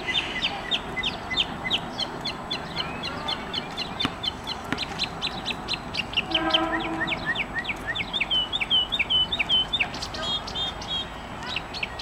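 Songbird singing fast runs of short chirps, each phrase repeated several times before it switches to another. A brief lower-pitched call comes about halfway through.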